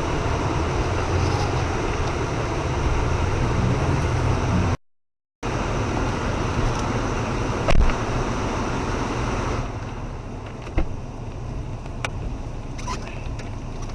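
Great Wall Hover SUV's engine running, with a steady rushing noise over it. The sound cuts out completely for about half a second, about five seconds in, and is quieter from about ten seconds on, with a few faint clicks.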